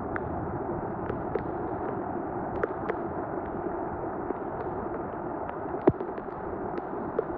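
Rainwater rushing and draining through a street storm drain being cleared of trash, with scattered sharp clicks and knocks of debris throughout; the sharpest knock comes about six seconds in.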